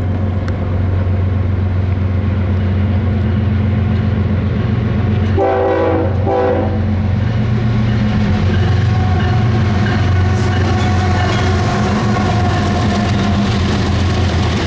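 BNSF freight train's diesel locomotives running steadily as the train approaches and passes, with two short train-horn blasts back to back about five and a half seconds in, and wheels clicking over the rails in the later part.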